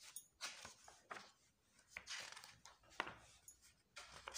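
Paper rustling as the pages of a drawing book are flipped, in several short swishes, with a sharp tap of the page or book about three seconds in.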